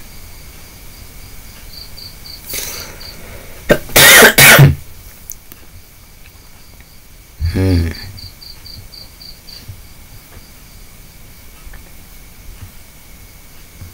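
A man coughing: a short fit of loud coughs about four seconds in, and another, voiced cough about three and a half seconds later.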